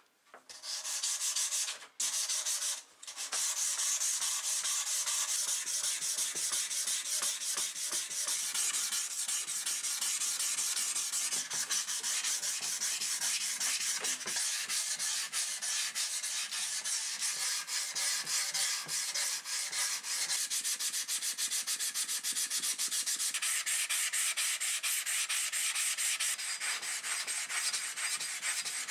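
Millers Falls hammer's steel head being wet-sanded by hand with sandpaper on a rubber sanding block: fast, continuous back-and-forth rubbing strokes, with two brief breaks about two and three seconds in.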